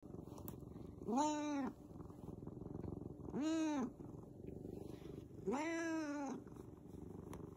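Tabby cat purring steadily as it is stroked, meowing three times, about two seconds apart; each meow is a short call that rises and falls in pitch and is louder than the purr.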